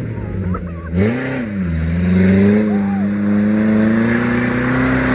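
Off-road vehicle engine under load. Its pitch swells and dips about a second in, then climbs slowly and steadily as it pulls.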